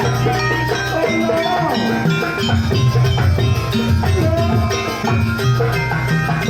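Jaranan gamelan music: drums over tuned gongs and metal percussion, playing a steady repeating pattern.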